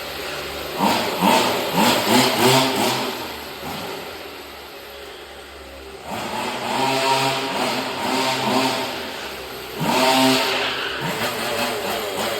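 A 26cc CY two-stroke engine in a 1/5-scale RC car, freshly rebuilt for high compression with the head gasket deleted, revving in a series of sharp throttle blips. It drops back to a quieter idle for a couple of seconds midway, then blips again, the strongest rev near the end.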